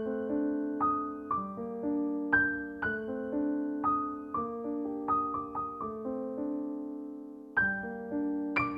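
Background piano music: a gentle melody of single notes and chords, each struck and left to fade. Near the end it dies away briefly before the next phrase begins.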